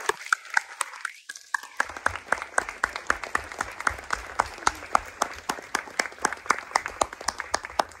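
Audience applauding, with one person's claps sharp and close to the microphone at about five a second over the general clapping.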